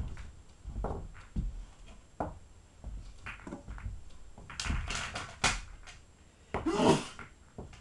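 Pool balls being handled on a pool table: irregular knocks and clacks as balls are taken from a pocket and set down, with soft thuds between them, a quick run of sharper clacks about halfway through, and a louder half-second rattle near the end.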